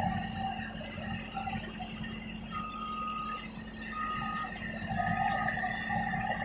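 Bulldozer running, a steady low rumble with a steady whine over it, and three short beeps of the same pitch about a second apart in the middle.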